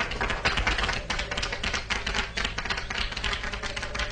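Small crowd applauding: a quick, irregular patter of hand claps.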